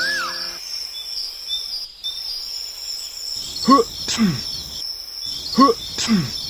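Steady high-pitched cricket chirring. About halfway through, a low call that swoops up and down, followed by a falling glide, starts repeating about every two seconds and is the loudest sound.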